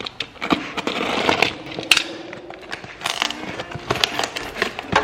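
Cardboard box and packaging being handled and opened: a scattered series of knocks, clicks and rustles, over light background music.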